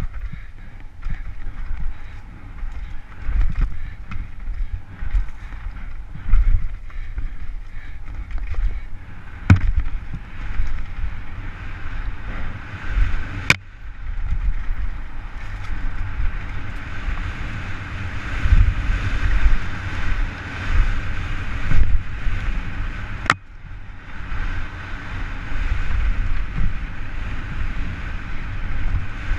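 Wind buffeting a helmet-mounted camera on a downhill mountain bike at speed, over the rumble of the tyres on a dirt trail, with three sharp clicks spread through.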